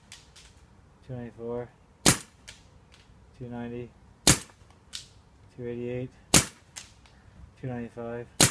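Luxe 2.0 electropneumatic paintball marker with a Pooty stage 6 bolt firing single shots, four sharp cracks about two seconds apart, each followed by a fainter click, during a velocity test.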